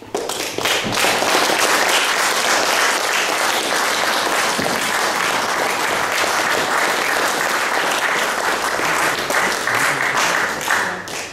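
A small audience applauding, starting suddenly and dying away near the end.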